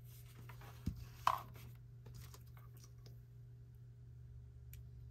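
Small clicks and light taps as a piece of costume jewelry is handled and tested to see whether its stone is glass, with a sharper knock about a second in, over a steady low hum.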